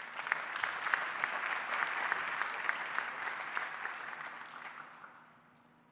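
Conference hall audience applauding: a burst of clapping that starts at once, holds for about four seconds, then fades out near the end.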